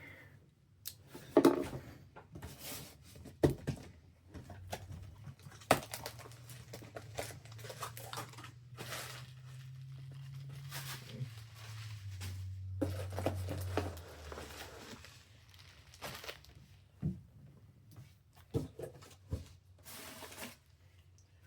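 A cardboard shipping package being opened by hand: tearing of tape and cardboard, crinkling of packing material, and scattered knocks and clicks as the box and its contents are handled.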